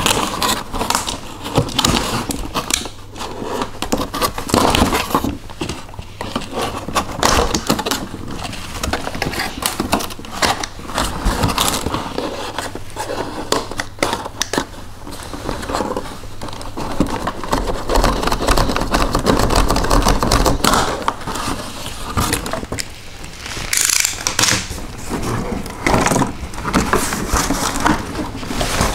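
Cardboard packaging insert being worked loose and pulled free: irregular scraping, rustling and crackling of cardboard with small knocks.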